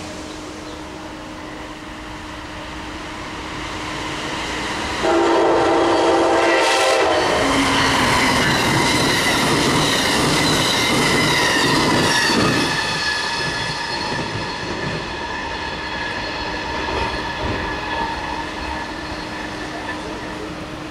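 Electric passenger train blowing its horn in one blast of about two seconds, then passing at speed with loud rushing wheel and rail noise and a whine that drops slightly in pitch as it goes by, easing off afterwards.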